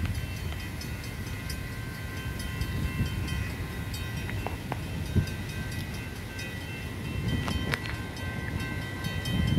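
Distant train approaching: a steady low rumble under a held multi-note locomotive air horn chord, the K5HLL on CSX #937, sounding from down the line.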